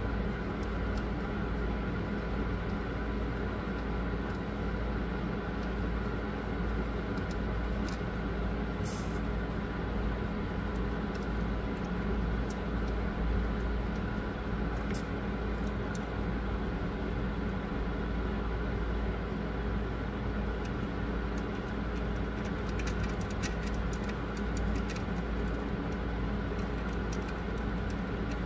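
Steady low hum and rumble, like a running fan or motor, with a few faint ticks now and then.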